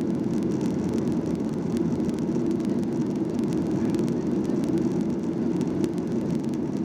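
Steady jet engine and airflow noise heard inside the cabin of a Skymark Boeing 737-800 airliner, an even low rumble with no changes.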